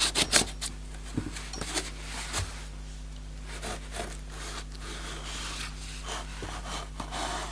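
Cardboard phone box and its packaging being handled as it is opened: a few sharp clicks and taps in the first second, then scattered light taps and soft rubbing and scraping. A steady low electrical hum sits underneath.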